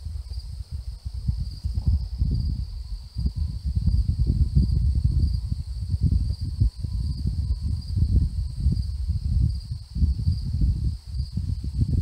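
Wind gusting on the microphone as an uneven low rumble, with crickets chirping in a steady high pulse.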